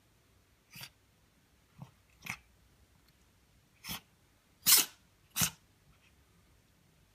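A cat sneezing repeatedly: a string of about six short, sharp sneezes a second or so apart, the two a little past the middle the loudest.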